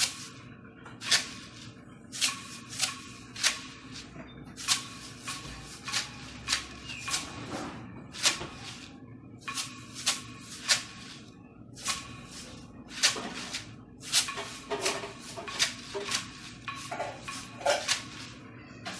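A pair of maracas shaken in short, crisp strokes, some single and some in quick pairs: the 'ta' and 'ti-ti' beats of a children's rhythm exercise.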